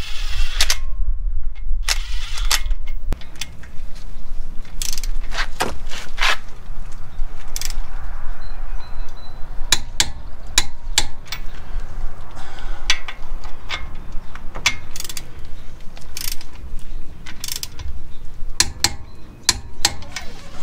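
A cordless impact wrench whirs briefly and stops within the first second. Then a long-handled click-type torque wrench ratchets and clicks on the wheel-spacer lug nuts as they are tightened to torque in a star pattern, giving a string of sharp, irregular metal clicks.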